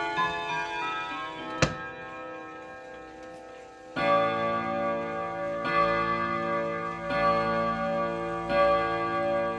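Jauch triple-chime wall clock striking the hour on its chime rods: four strikes about a second and a half apart, the first about four seconds in, each ringing on over the last. Before that the chime melody's last tones are fading, with one sharp click partway through.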